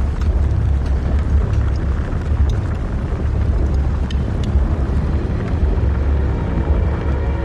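A loud, steady low rumble with a few faint scattered ticks.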